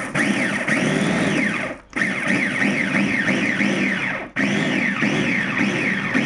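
Electric food chopper's motor running under load while its blades chop sambal ingredients with a little water, giving a wavering whine. It cuts out briefly twice, about two seconds in and again just past four seconds, as the press-down top is let up and pressed again.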